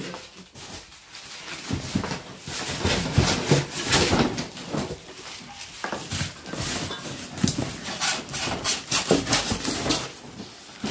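Styrofoam packing and plastic wrap of an air conditioner being handled: a run of irregular squeaks, rubs and rustles.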